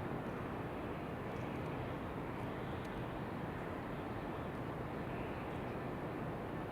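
Steady outdoor ambience of wind blended with white noise: an even, unbroken rushing wash, with a few faint high clicks.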